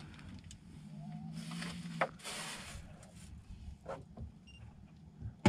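Handling of a fish on a plastic measuring board: light rustles and clicks, with a low steady hum underneath. A loud thump comes at the very end.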